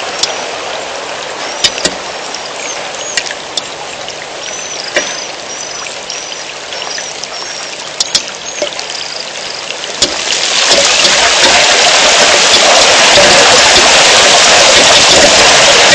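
Rain falling, with scattered drops ticking sharply on the microphone and a short run of high chirps in the first few seconds. About ten seconds in the rain turns into a much louder, heavier downpour that holds steady.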